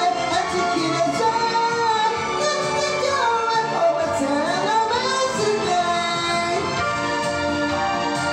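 A voice singing a Japanese pop song over a karaoke backing track, the melody bending and gliding between notes.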